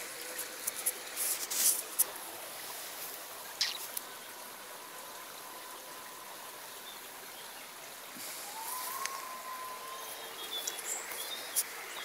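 A faint steady hiss of open-air ambience with a few sharp clicks in the first seconds, and a bird chirping a few times near the end.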